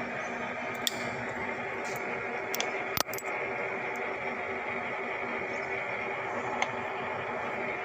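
Taiwan-made 410 × 1500 metal lathe running with a steady mechanical hum made up of several held tones, with a few light clicks, the sharpest about three seconds in.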